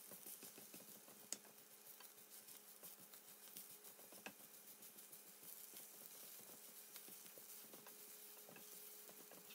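Slotted wooden spatula stirring baby spinach, onions and mushrooms in a nonstick frying pan as the spinach wilts down: faint scraping and light tapping over a soft sizzle, with one sharper tap about a second in.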